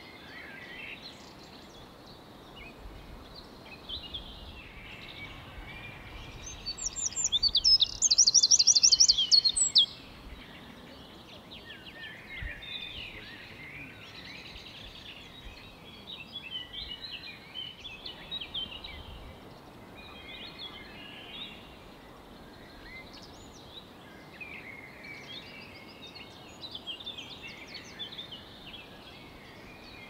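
Small songbirds singing outdoors, several voices chirping and warbling on and off. About seven seconds in, one bird sings close by: a loud, fast run of high notes that stops abruptly about three seconds later.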